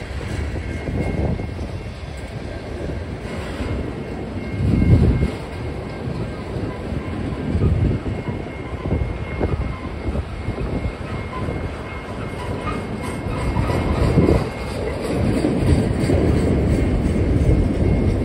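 Freight train cars, mostly autoracks, rolling past: a steady rumble and rattle of steel wheels on the rails, swelling louder a few times as cars go by.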